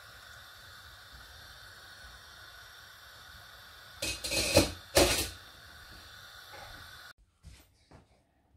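Steady hiss of a large pot of milk and rice boiling on a full gas flame. Two loud, short clattering noises come about four and five seconds in, and the sound cuts off abruptly a little after seven seconds.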